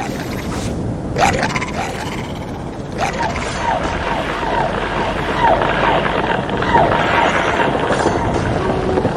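Strong gusting wind, a loud, steady rushing noise that swells and eases. From about one to seven seconds in, a run of short falling tones repeats two to three times a second over the wind.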